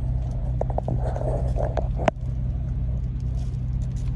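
Semi-truck engine idling, a steady low hum heard inside the cab, with a single sharp click about two seconds in.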